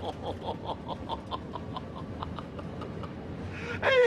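A man's wheezing, breathy laughter in quick short pulses, about five a second, then a loud burst of laughter that falls in pitch near the end.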